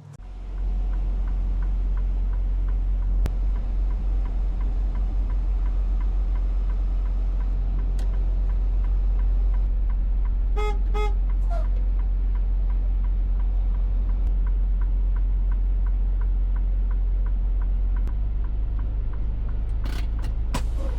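Semi truck's diesel engine running with a steady low rumble, starting up sharply at the outset. About halfway through come two short horn beeps.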